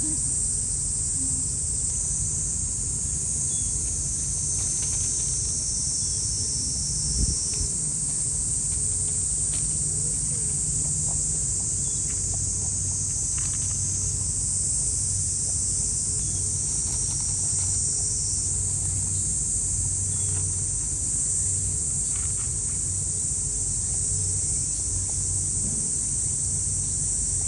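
Steady high-pitched insect chorus, with a low steady rumble underneath and one brief knock about seven seconds in.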